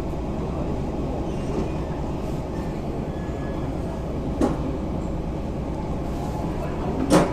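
Steady low rumble of a cruise ship underway, heard from on board, with two short sharp noises, a small one about four seconds in and a louder one near the end.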